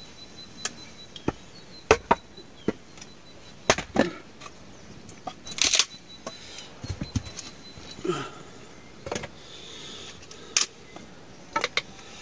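Irregular sharp knocks and clicks, about fifteen spread over twelve seconds, some in quick pairs. A faint steady high tone sounds behind them and fades out about two-thirds of the way in.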